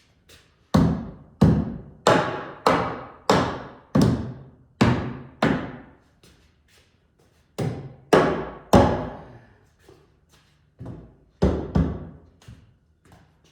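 Sledgehammer blows knocking a wooden framing board into place: about a dozen heavy thuds, each ringing out briefly. A steady run of eight comes first, then after a pause a quick group of three, then a few more near the end.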